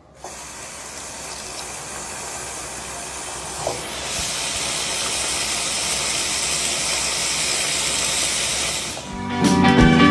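Steady hiss, growing louder about four seconds in, then cut off near the end as music starts.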